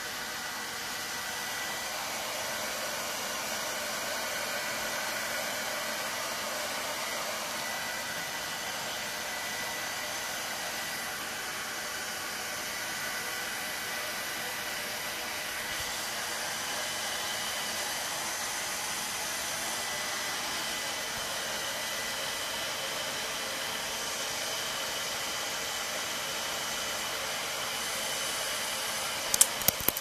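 Hair dryer running steadily: a continuous airy hiss with a thin steady whine, turning brighter about halfway through. Three quick sharp clicks come near the end.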